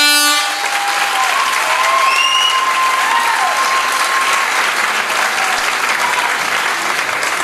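Live audience applauding and cheering, with loud whoops at the start and a long held whistle or cry over the clapping.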